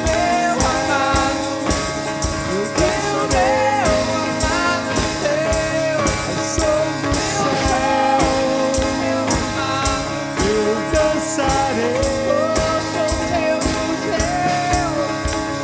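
Worship band playing: strummed acoustic guitar and a drum kit keeping a steady beat, with a voice singing a wavering melody over them.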